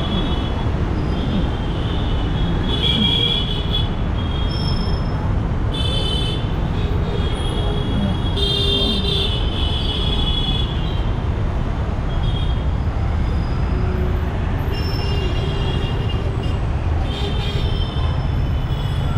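Busy road traffic: a steady din of engines with vehicle horns honking every second or two, some short toots and some held longer.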